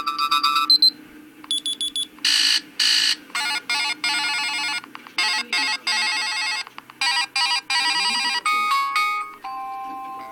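Stock ringtones of a DEXP Ursus NS110 Android tablet playing one after another: short electronic melodies and chimes, some made of rapid pulsing notes, each lasting a second or two before the next begins.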